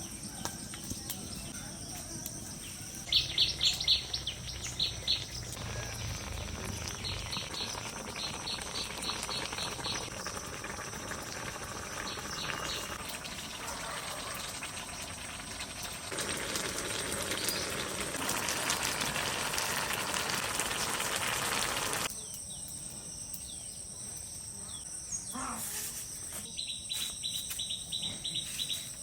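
Crickets chirping steadily and high-pitched in the background. There are short bursts of rapid clicking about three seconds in and again near the end, and a louder steady hiss for about six seconds in the middle that cuts off suddenly.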